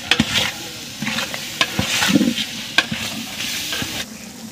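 A long-handled ladle stirring and scraping a thick onion-tomato biryani masala as it fries and sizzles in a large metal pot, with several sharp knocks of the ladle against the pot. The masala is kept moving so it does not stick to the bottom.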